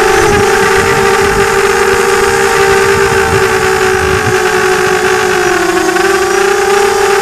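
FPV multirotor drone's motors and propellers whining steadily, heard from the camera on board. The pitch dips briefly about five and a half seconds in, then comes back up.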